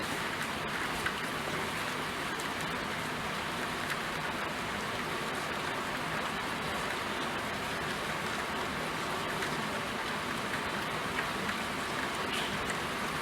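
Steady rain falling and pattering on a surface, with scattered faint drop ticks.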